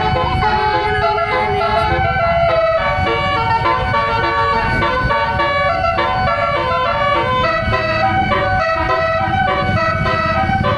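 Tour bus's multi-tone telolet (basuri) horn playing a melody, many tones stepping together from note to note, over a low rumble.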